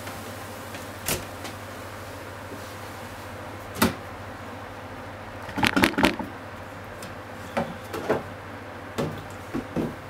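Scattered knocks and clunks of handling at a kitchen gas stove, loudest in a quick cluster about six seconds in, over a steady low hum.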